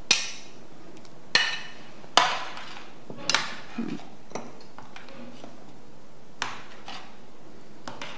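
Metal spoon clinking against a plate and the rim of a Saladmaster stainless steel pan while food is scraped into soup and stirred: four sharp clinks in the first few seconds, then fainter scattered taps.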